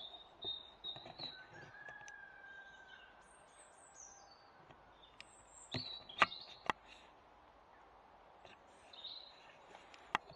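Woodland birds singing and chirping, with high chirps and a held whistled note. About halfway through come three sharp clicks in quick succession, the loudest sounds, and one more single click near the end.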